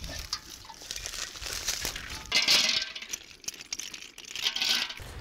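Small sea snail shells (coquillons) clattering and clinking as they are handled and dropped into a large metal cooking pot, with two louder bursts of rattling, about two and a half and four and a half seconds in.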